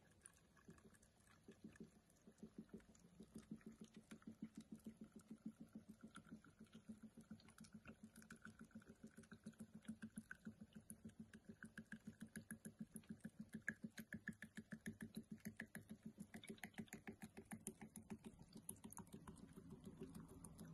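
Vinegar pouring in a thin stream from a bottle's flip-top pour cap into a glass jar of garlic, ginger and peppercorns. It makes a faint, rapid, even glugging trickle of about six pulses a second.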